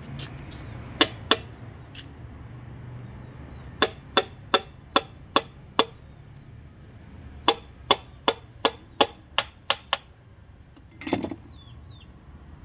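Runs of sharp taps: a hammer tapping pistons with fitted rings down into the cylinder bores of a Range Rover 5.0 V8 block. There are two taps near the start, then runs of about six and about eight, roughly two and a half a second, followed by a short clatter near the end.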